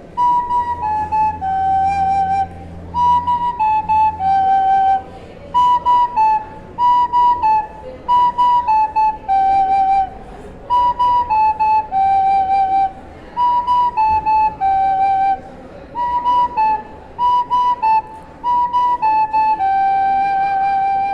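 Soprano recorder playing a simple tune on three notes, B, A and G. The short notes fall in repeated three-note figures, each ending on a held G, with brief breaths between phrases, and the tune closes on a long G.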